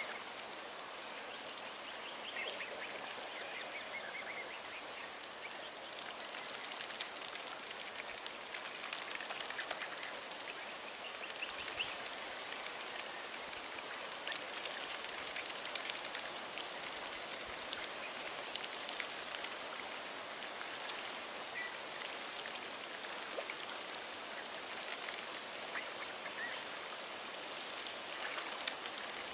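Mute swans and cygnets feeding at the water surface, a steady crackly dabbling and splashing from their bills sifting duckweed, with a few faint high calls.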